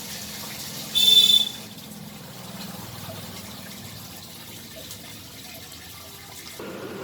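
Homemade foam speed boat running in water, its small battery-powered motor and propeller stirring the water into a steady watery wash. A short, loud, high-pitched squeal about a second in.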